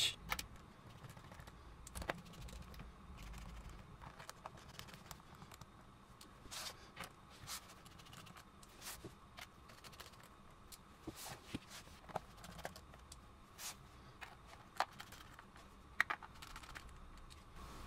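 Small precision screwdriver driving the screws of a MacBook Pro's aluminium bottom cover: faint, irregular small clicks and scrapes of the bit on the screw heads and of hands handling the metal case, with a few sharper clicks scattered through.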